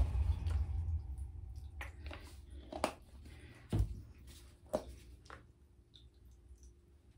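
A few faint, separate clicks and taps of handling in a quiet room, with one soft thump just under four seconds in.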